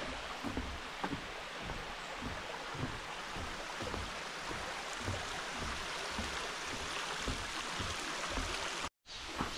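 Mountain valley stream flowing, a steady rush of water with irregular low thumps underneath.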